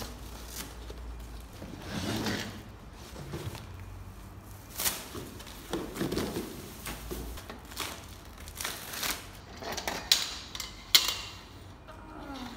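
A cardboard box being torn open and handled: rustling and scraping of cardboard and packing tape, with two sharp knocks near the end as the packed folding table parts are pulled out and set down.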